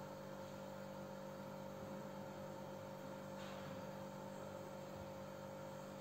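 Faint steady electrical hum: background room tone with no other activity.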